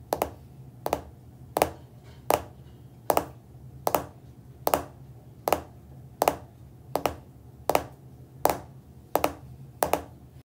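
A run of sharp taps or snaps, evenly spaced at about one every three-quarters of a second, over a low steady hum.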